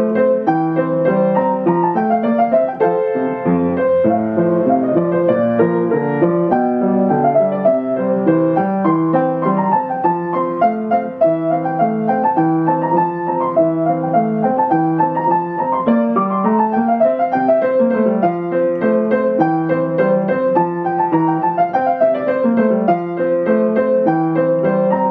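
Upright piano played at a lively, steady tempo in a short classical Allegro. The right hand runs quick melodic figures over a broken-chord accompaniment in the left hand, with no pauses.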